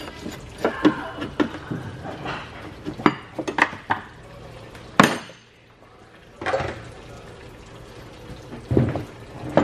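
Metal hand tools and loose parts clinking and knocking against the steel work cart and an aluminium rotary-engine housing, with one sharp metallic clank about five seconds in.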